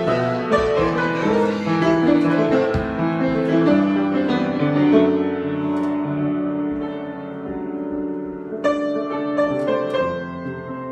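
Solo piano improvisation: flowing chords and melody with sustained notes, growing a little softer about two thirds of the way through, then a fresh chord struck near the end.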